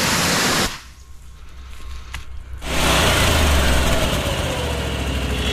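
A high-pressure water gun spraying loudly, cutting off under a second in, leaving the petrol engine of the water jetter unit humming. About three seconds in the engine becomes much louder and runs on steadily close up.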